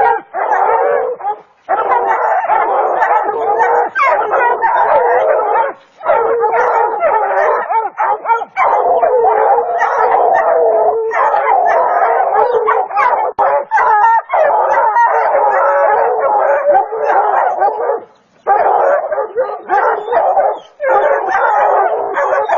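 Several hounds baying and barking over one another, almost without pause, holding a mountain lion at bay. There are only short breaks, the longest a little after the middle.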